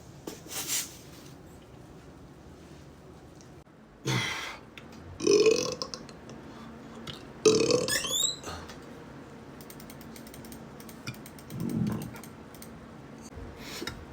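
A man burping four times, a few seconds apart, with faint clicks between the burps.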